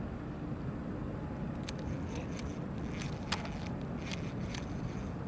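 Steady rumble of road traffic from a nearby highway. About a second and a half in, a run of roughly eight light, sharp clicks over about three seconds.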